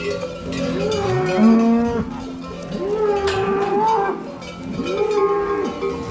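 Several cattle mooing, their calls overlapping and repeating, with cowbells ringing.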